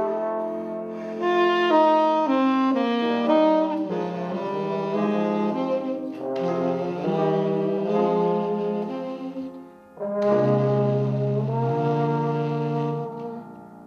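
Tenor saxophone and trombone playing a duet of held notes, the two lines moving against each other. About ten seconds in the sound briefly drops away, then returns with a strong low note.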